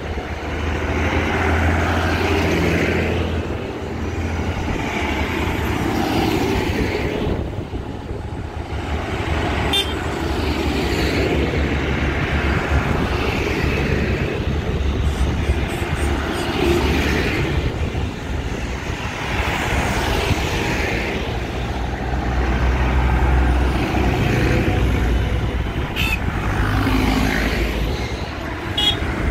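A procession of tractors and road vehicles driving past one after another on a road run, the engines swelling and fading as each one goes by.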